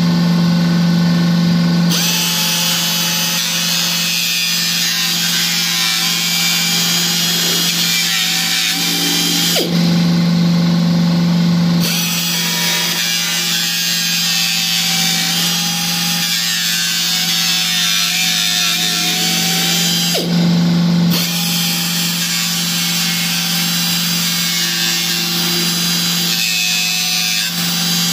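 Small handheld cut-off tool with a thin abrasive wheel cutting into a Corvette firewall panel: a steady motor whine with a loud gritty hiss while the wheel bites. The hiss drops out briefly three times, at the start, about ten seconds in and about twenty seconds in, leaving only the tool's even whine.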